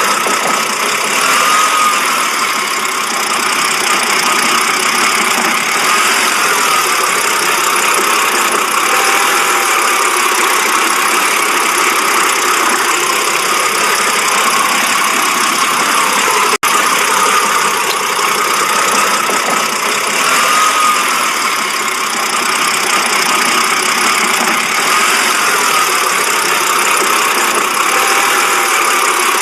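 BMW engine idling roughly: a steady running sound with a slight waver that recurs every few seconds, the rough idle the owner is demonstrating. The sound drops out for an instant just past the middle.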